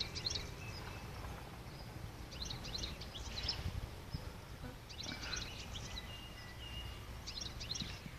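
Small birds chirping and twittering in short bursts every couple of seconds, over a low steady outdoor rumble.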